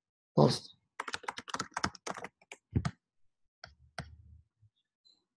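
Typing on a computer keyboard: a quick run of keystrokes, then a few separate key or mouse clicks.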